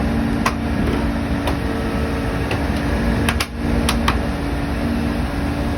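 Heavy cutter soil mixing (CSM) rig running with a steady mechanical hum, with a few sharp clicks or knocks along the way and a brief drop in level a little past halfway.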